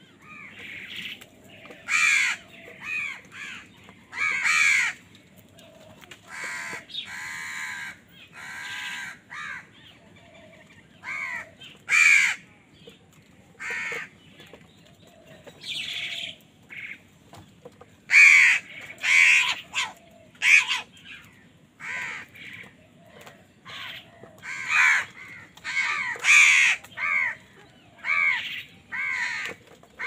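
Several house crows cawing over and over, short harsh caws coming in quick runs and overlapping from different birds, as they compete for food.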